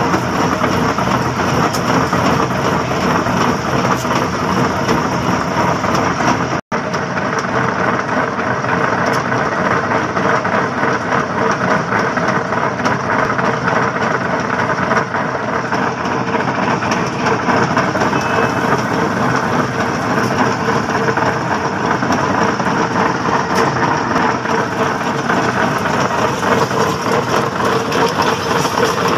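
Concrete pipe-spinning machine running: the steel pipe mould turns on its roller wheels with a steady, loud rumble and a faint motor hum, concrete mix churning inside. The sound cuts out for an instant about seven seconds in.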